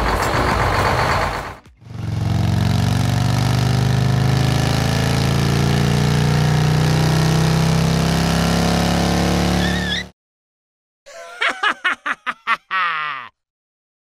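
Music ends less than two seconds in. Then an engine runs with a steady, even low drone for about eight seconds and cuts off abruptly. After a short silence come a few sharp clicks and a sound falling in pitch.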